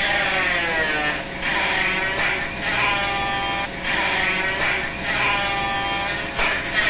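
Flexible-shaft rotary carving tool with a carbide burr grinding redwood: a high whine whose pitch sags and recovers in strokes about once a second as the burr bites into the wood. A steady hiss of the dust-extraction vacuum runs under it.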